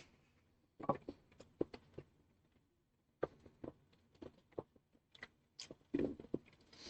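People chewing a soft chocolate bar: scattered quiet mouth clicks and smacks, some in quick clusters.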